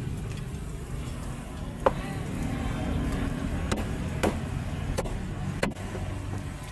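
Cleaver chopping grilled meat on a thick round chopping block: about five separate knocks, spaced out, over a steady low rumble of street traffic.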